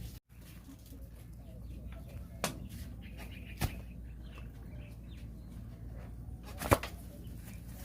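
Three sharp knocks or slaps, about 1 s and 3 s apart, the last the loudest, over a steady low background noise.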